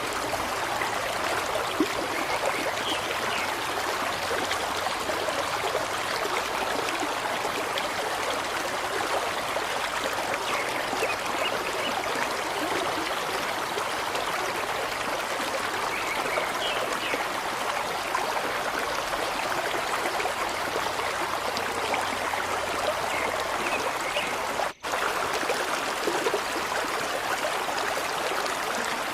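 Running water, like a stream, flowing in a steady, even rush. It cuts out for an instant late on.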